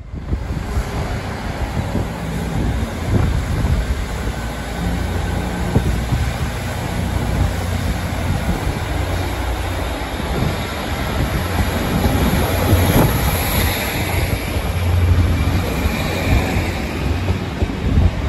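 Northern Class 156 diesel multiple unit running past, its underfloor diesel engines droning low and its wheels clicking over the rail joints.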